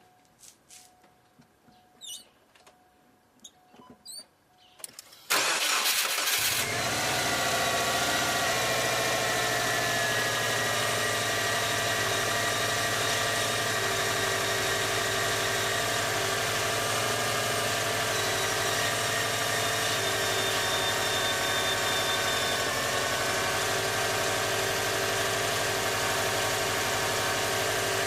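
Subaru Forester's EJ20 flat-four cold-started: after a few faint clicks, the starter cranks for about a second, then the engine catches and idles steadily. The idle carries the abnormal rubbing-like noise that the owner hears on morning starts and places at the rear of the engine rather than the front belts.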